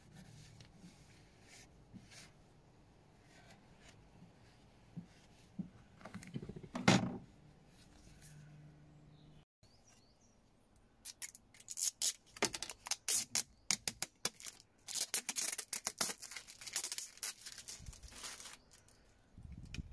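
Protective backing film being peeled off a perspex sheet: a dense run of quick crackling rips over several seconds in the second half. Earlier there is quieter handling with one sharp knock.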